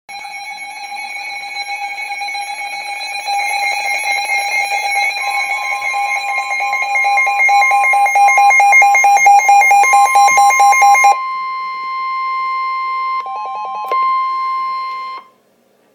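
Emergency weather alert tones. A fast-pulsing electronic alarm beeps over a steady high tone and grows louder, then stops abruptly about eleven seconds in. The steady tone, the NOAA Weather Radio warning alarm tone of about 1050 Hz, carries on alone and cuts off about a second before the end.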